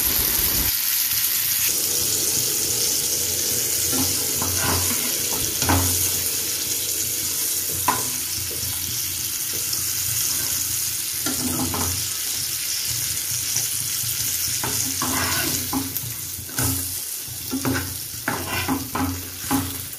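Flour-coated Indian mackerel (bangda) shallow-frying in hot oil in a nonstick pan: a steady high sizzle. A steel spatula knocks and scrapes against the pan now and then as the fish are moved and turned, more often in the last few seconds.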